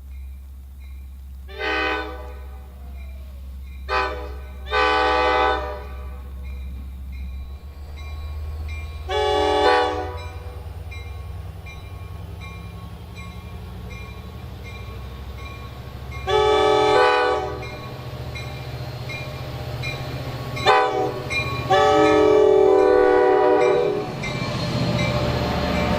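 Horn of a Long Island Rail Road DE30AC/DM30AC locomotive sounding about eight times, several tones together in a chord. The blasts run from short toots to one about two seconds long near the end, over a steady low rumble.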